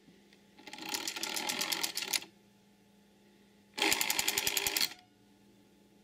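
Rotary telephone dial dialing 0. First it is wound round to the finger stop with a burst of fine ratcheting clicks lasting about a second and a half. After a pause it is let go and spins back under its spring and governor, whirring, with ten quick clicks about ten a second as the dial pulse contacts open and close ten times.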